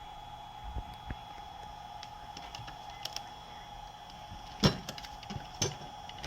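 A few scattered clicks and knocks of hard objects being handled, the loudest a little past two-thirds through, over a steady faint hum.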